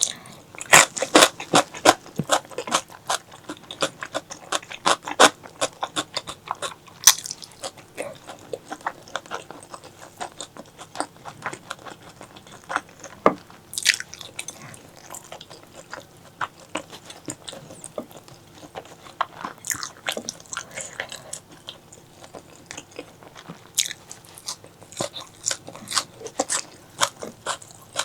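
Close-miked eating sounds of a person biting and chewing spicy pork leg: a fast run of sharp, wet clicks and crunches, busiest in the first several seconds and more scattered after.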